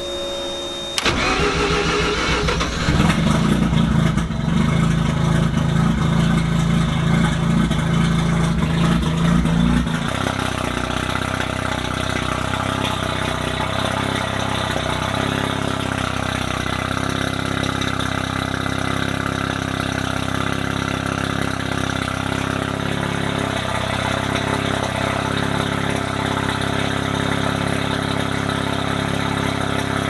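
Mazda RX-7 FD3S's 13B-REW rotary engine starting about a second in, then running at a raised, fluctuating idle. About ten seconds in it settles into a steady, lower idle.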